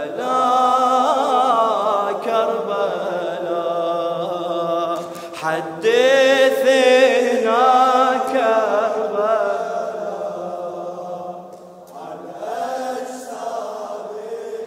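A man's voice chanting a Shia lament (nadbiya) unaccompanied, drawing out the word "Karbala" in three long phrases of held, wavering notes.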